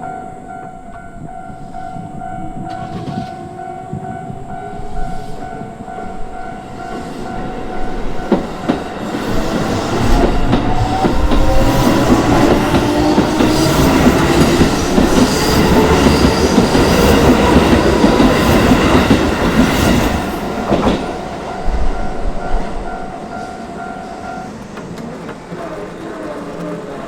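Japanese level-crossing alarm ringing its steady repeating electronic ding while a Keisei Chiba Line electric train passes over the crossing. From about 8 to 21 seconds in the train is loud, with a rising motor whine and wheels clacking over the rail joints. The alarm stops a few seconds before the end, then starts ringing again.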